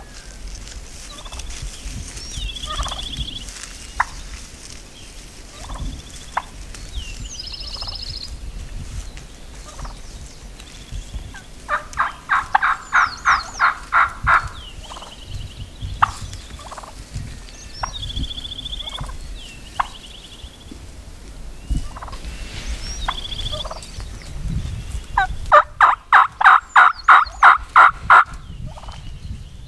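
Gould's wild turkey gobbling twice, about thirteen seconds apart, each gobble a loud rapid rattle of about ten notes. Small songbirds chirp faintly in between.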